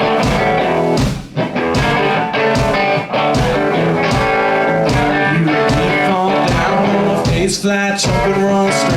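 Live rock band playing an instrumental passage, with guitar over a steady drum beat.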